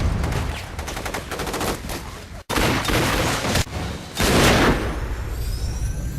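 Gunfire: a dense run of rapid shots, an abrupt cut about two and a half seconds in, then heavy blasts, the loudest just after four seconds, dying away.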